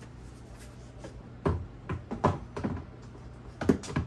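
Hard plastic knocks and clunks as a canister and a cordless drill are set down into wall-mounted plastic storage bins: a run of knocks from about a second and a half in, then two more near the end.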